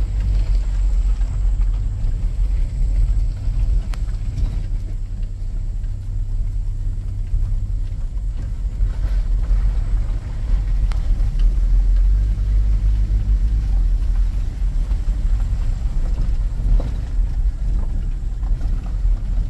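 Vehicle engine and tyres rolling slowly over a rough alley, heard inside the cab as a steady low rumble.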